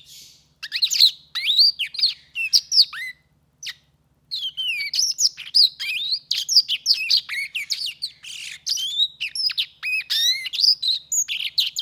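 Black-throated canary singing: a fast, varied song of short whistles, slurred notes and trills, with a pause of about a second around three seconds in.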